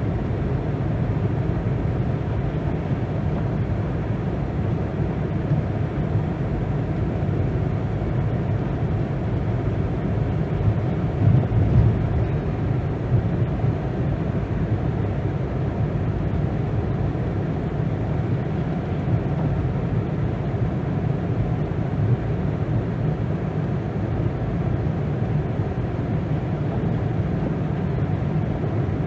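Car driving, a steady low rumble of engine and tyre noise that swells slightly about eleven seconds in.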